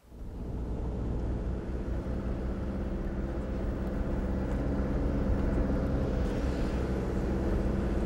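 A car driving along a road at a steady speed: a steady low engine and road drone that fades in at the start.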